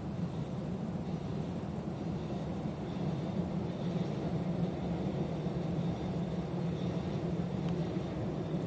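Steady summer night ambience: a continuous high-pitched buzz typical of crickets or bush-crickets, with a low steady hum beneath.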